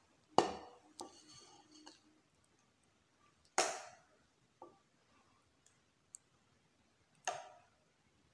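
Steel ladle knocking and clinking against a stainless steel pan and a serving bowl as thick rice kheer is ladled out: a handful of sharp clinks with a short metallic ring, the loudest about half a second in, others around three and a half seconds and near the end, with lighter taps between.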